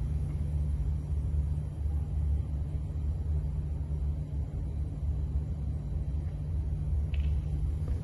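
Steady low rumble, with a faint click about seven seconds in.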